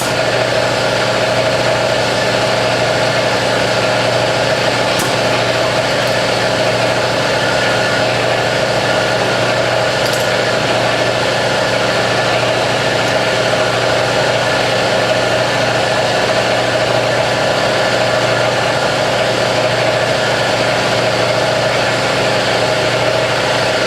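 Hydraulic press pump running with a steady mechanical hum while the press squeezes two CO2 cartridges flat, with a few faint clicks about 5, 6 and 10 seconds in.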